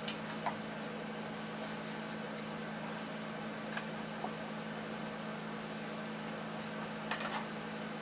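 Steady low hum of room noise, with a few light taps and clicks of a wooden ruler and marker being moved and set down on fabric over a table: two near the start, a couple around the middle, and a short cluster near the end.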